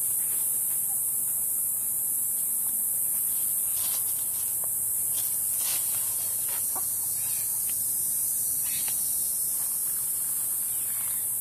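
A hen clucking a few times in the middle, short soft clucks over a steady high hiss.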